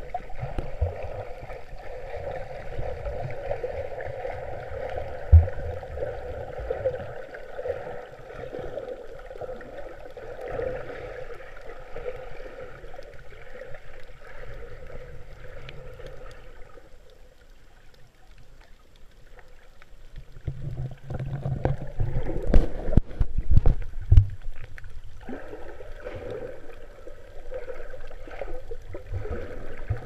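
Muffled water noise picked up with the camera underwater: a steady wash, then a run of dull knocks and splashes from about two-thirds of the way through.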